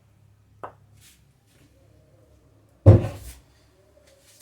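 A loud knock about three seconds in, as of a kitchen item being set down or a cupboard door shutting, with a lighter click before it and another knock at the end.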